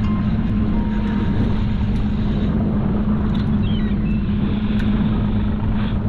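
Boat engine running steadily at an even pitch, under a constant rush of noise.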